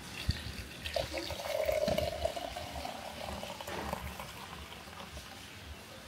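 Liquid pouring for a couple of seconds, starting about a second in, with a light knock just before.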